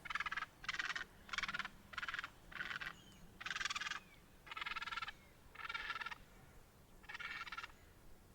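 Domestic fowl calling: a series of about nine short pitched calls, roughly one a second, the later ones a little longer, with a longer gap before the last one.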